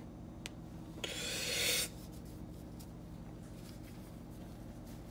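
Adhesive tape pulled off the roll in one tear about a second in, growing louder for under a second before it stops, with a small click just before it, over a faint steady hum.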